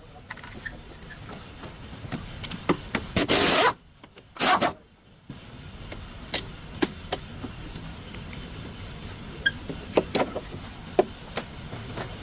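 Hand work on car parts: scattered clicks and knocks from tools and metal parts, with two louder scraping noises about three and four and a half seconds in.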